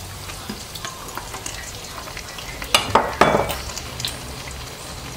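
Onions frying in oil in a nonstick frying pan, a steady sizzle, as diced raw chicken breast goes in and is stirred with a wooden spoon. A short burst of louder scraping and clatter comes about three seconds in.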